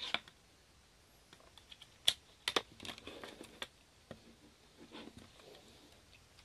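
Hard plastic parts being handled: a string of sharp clicks and taps as a small USB socket adapter is set down and a plug is pushed into the socket of a plastic hand-crank generator. The loudest click comes about two seconds in.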